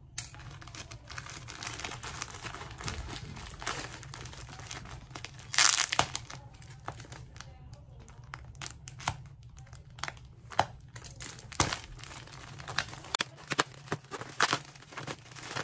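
Plastic courier mailer bag crinkling and tearing as it is cut and pulled open by hand: a run of sharp crackles, with one longer, louder rip about five and a half seconds in.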